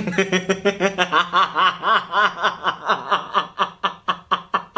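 A man laughing in a long run of quick, breathy bursts, about six a second, slowing and fading near the end. A steady low tone runs under the laughter and stops shortly before the end.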